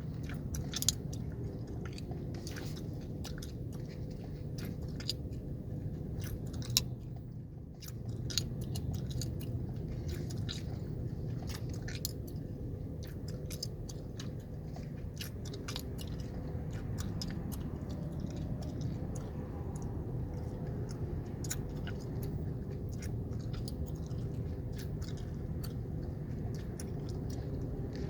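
Chewing gum being chewed close to the microphone, with repeated wet smacks and sharp clicks, over the steady low hum of a car cabin idling in traffic.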